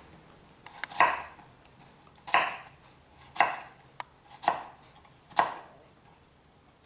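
Chef's knife slicing down through a halved onion and striking the bamboo chopping board, five strokes about a second apart that stop a little past five seconds in. These are the thin vertical slits cut into the onion half, left joined at the root, for a fine dice.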